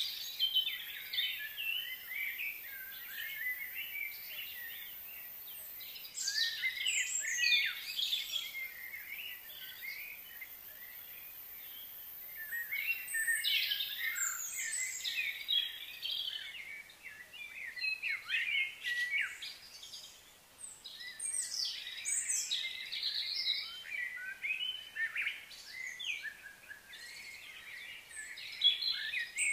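Small birds chirping and twittering in quick overlapping bursts, with a couple of brief lulls.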